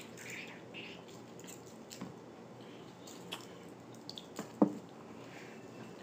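Wet eating sounds: seafood-boil food being handled, dipped in sauce and chewed, with scattered small clicks and squishes and one louder sharp click about four and a half seconds in.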